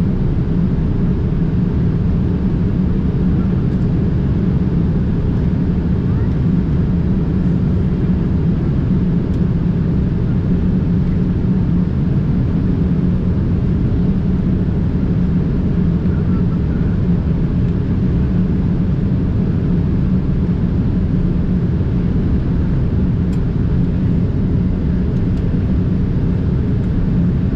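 Steady airliner cabin noise aboard a Boeing 787-8: a constant low rumble of engines and airflow that holds the same level throughout.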